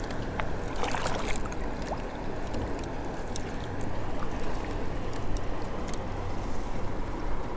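Water lapping and trickling against a kayak hull, with scattered small clicks and a brief splashy rush about a second in.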